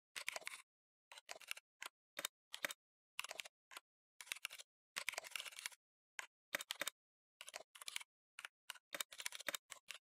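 Typing on a computer keyboard: irregular bursts of quick keystroke clicks separated by short pauses.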